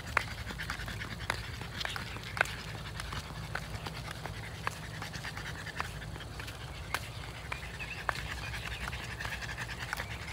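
A dog panting steadily, with scattered light clicks.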